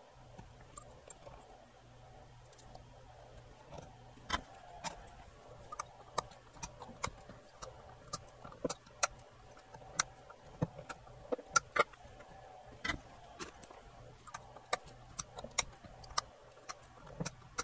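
Irregular sharp metallic clicks and ticks, one or two a second from about four seconds in, as pliers and a soldering iron work capacitor leads on a circuit board. A faint steady low hum runs underneath.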